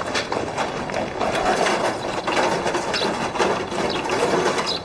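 Hand-pulled rickshaw rattling and clattering steadily over paving stones as it is pulled away at a run.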